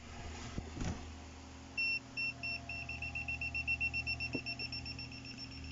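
BSIDE S11 smart multimeter beeping in non-contact voltage (NCV) mode: short high beeps start about two seconds in and quickly get faster, a sign that it is sensing live AC voltage. A low steady hum runs underneath.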